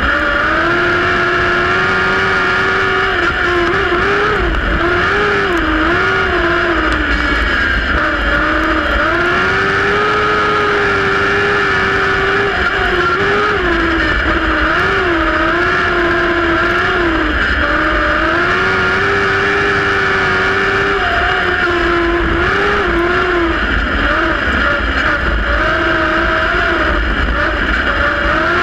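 Compact speedcar's engine heard from on board while racing on a dirt speedway, loud and steady. Its pitch rises and falls every second or two as the throttle is worked through the turns.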